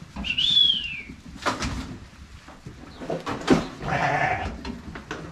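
Lambs bleating. One high bleat rises and falls about half a second in, and a rougher bleat comes around four seconds in, with a few sharp knocks between them.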